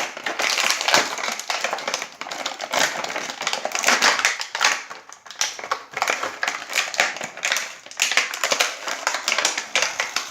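Toy packaging being worked open by hand to free an action figure: a dense, irregular run of crackling, crinkling and snapping.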